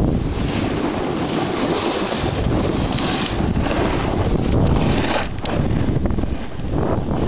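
Wind buffeting the microphone: a loud, steady rush, heaviest in the low end, that dips briefly a couple of times.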